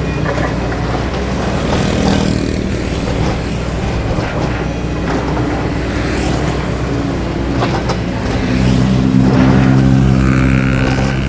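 Doosan DX225LCA excavator's diesel engine running under load with scattered clanks and knocks; about eight and a half seconds in the engine note rises and grows louder, and a high whine joins it near the end.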